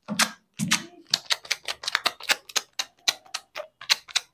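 Dust-removal sticker dabbed repeatedly against a phone's glass screen to lift dust before a screen protector goes on: a fast, even run of sharp sticky ticks, about six a second, after a few irregular knocks.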